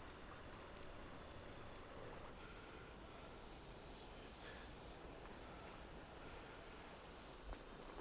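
Faint forest ambience: insects chirping in a high, evenly pulsing trill over a low, steady hiss.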